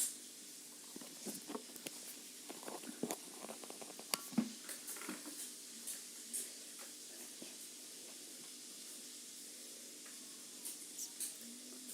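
Scattered light clicks, taps and crackles of food and utensils being handled, busiest in the first half and sparse after that.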